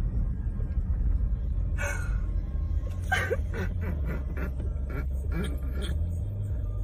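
Low steady rumble of a vehicle engine running at low speed. From about two to six seconds in, a run of short, pitched vocal sounds rises above it.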